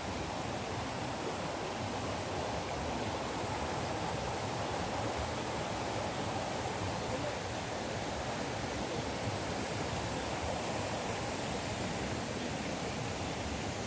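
Stream rushing steadily after rain.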